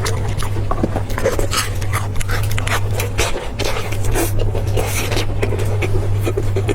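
Close-miked chewing and wet mouth clicks of someone eating pork, in an irregular string of short crackly sounds over a steady low hum.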